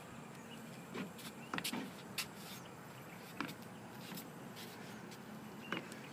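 Faint outdoor background hiss with a few light, sharp taps and clicks scattered through it, about half a dozen in all.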